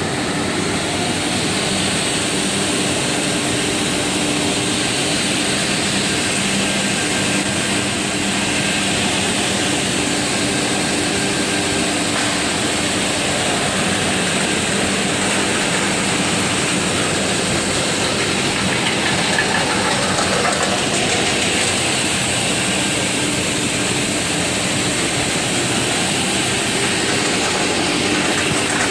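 Redwood RW-6132Z sliding-table panel saw running steadily, its motor and spinning blade making a loud even hum and whir that starts suddenly.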